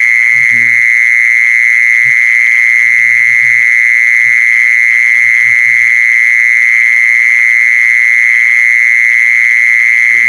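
Steady, unbroken, loud trilling song of a jee-son insect (Thai แมงจีซอน), held on one high pitch. Faint low murmurs come and go underneath.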